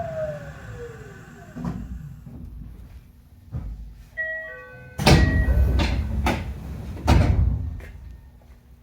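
Tokyo Metro 8000 series train slowing to a stop, its traction motor whine falling in pitch and fading. A short electronic chime of several notes follows, then the doors slide open with loud rushes of air and thuds.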